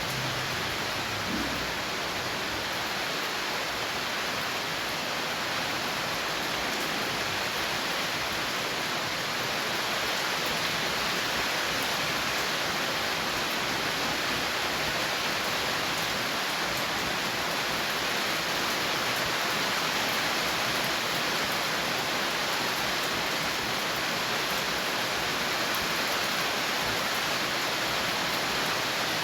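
Steady rain falling, an even, unbroken hiss with no separate drops or thunder standing out.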